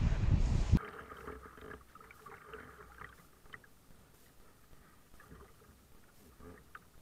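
Wind buffeting the microphone with a low rumble, cut off suddenly under a second in; then a kayak paddled gently on calm water, with soft splashes and drips from the paddle strokes and a few small clicks.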